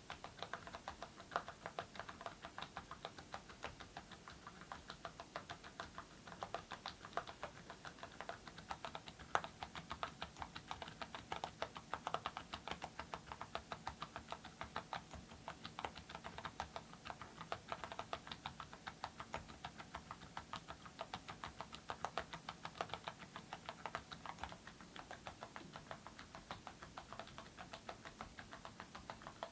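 Typing on a mechanical keyboard with Awekeys full-metal keycaps on silent (low-noise) switches: a continuous stream of keystroke clacks, several a second.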